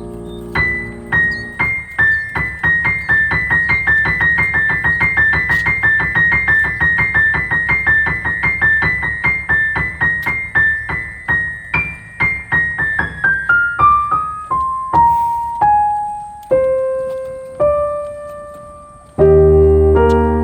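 Background piano music: a fast run of short high notes, then a line of single notes stepping down and slowing, then fuller low chords near the end.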